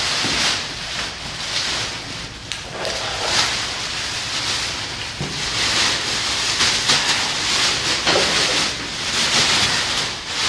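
Large black plastic garbage bag rustling and crinkling in uneven bursts as it is handled and pulled around a dog carcass.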